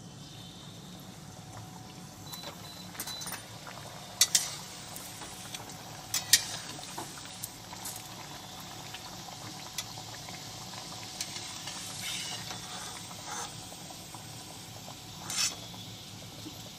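Onion kachori deep-frying in hot oil in a steel kadai, a steady sizzle, with a few sharp clinks of a metal slotted spatula against the pan, the loudest about 4 s in, around 6 s and near the end.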